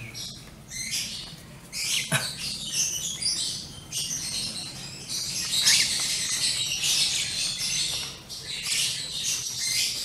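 Month-old lovebird chicks giving high, scratchy calls in quick repeated bursts, the hungry begging calls of chicks waiting to be hand-fed. There is a single knock about two seconds in.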